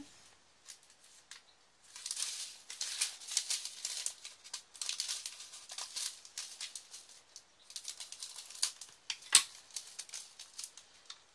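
A small plastic bag of diamond painting rhinestones being handled: plastic crinkling and the small rhinestones rattling, in several bursts of a second or two. There is one sharp click about nine seconds in.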